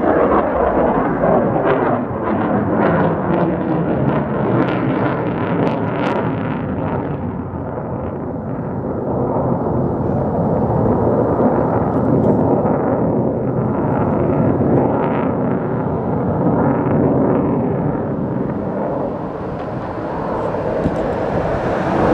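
Jet aircraft flying overhead: a loud, continuous engine roar whose pitch wavers slowly. It eases a little a couple of times and swells again near the end.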